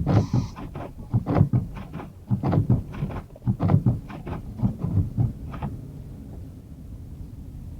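Car interior while driving through a blizzard: a steady low rumble, with a run of irregular knocks and thumps for about the first six seconds, then only the rumble.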